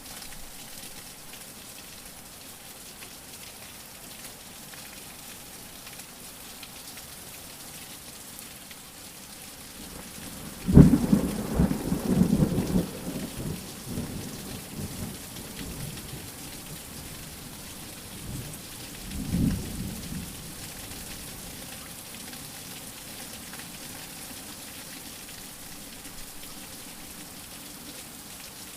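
Steady rain with a sudden loud thunderclap about eleven seconds in that rumbles away over a few seconds, and a second, softer roll of thunder a little over eight seconds later.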